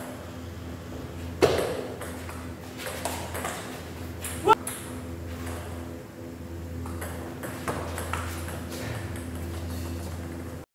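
Table tennis ball striking bat, table or floor: a few separate sharp clicks, the loudest about a second and a half in and about four and a half seconds in, the second with a brief ring. Under them runs a steady hum.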